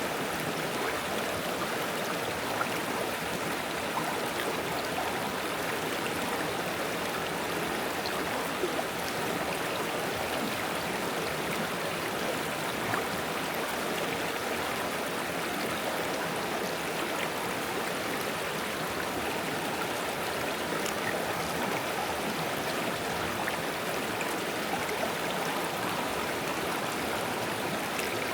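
Forest stream babbling over stones: a steady, unbroken rush of running water.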